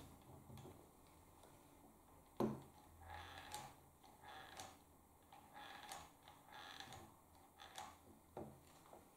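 Faint, scattered clicks and taps from a hot glue gun being worked while filling holes in 3D-printed plastic parts; the sharpest click comes about two and a half seconds in.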